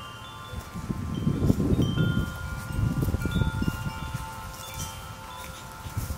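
Metal tube wind chimes ringing, with several tones starting at different moments and lingering over one another. For a few seconds starting about a second in, a low gusty rumble of wind on the microphone is louder than the chimes.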